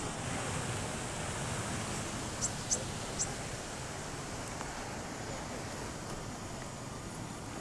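A huge flock of common starlings massing over their roost: a steady rushing hiss of wings and chatter, with three short high whistles about two and a half to three seconds in.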